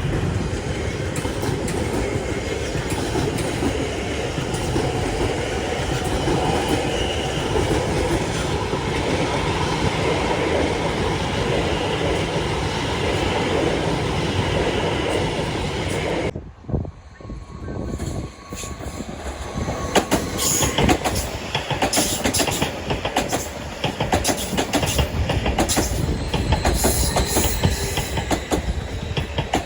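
A passing train: a steady rumble of wheels on the rails that stops abruptly a little past halfway, then the clatter and clicks of train wheels running over rail joints.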